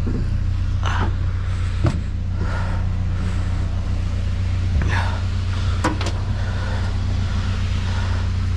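Pickup truck engine idling steadily, with a handful of sharp clicks and knocks from the bungee cord and scrap being secured in the truck bed.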